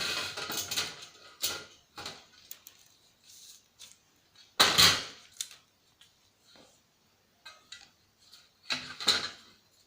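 Sharp clicks, knocks and clatter of plastic and metal parts being handled during the disassembly of a CRT TV/DVD combo. The louder knocks come at the start, about five seconds in and about nine seconds in, with lighter ticks in between.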